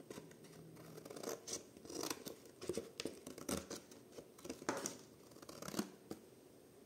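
Scissors cutting through thin cereal-box cardboard: a run of uneven snips that starts about a second in and stops shortly before the end.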